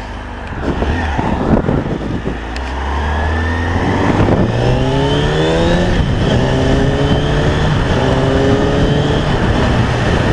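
Kawasaki ZX-636R's inline-four engine accelerating under riding wind noise: its note climbs in pitch from about two seconds in, then rises again in several short steps as the bike is worked up through the revs and gears.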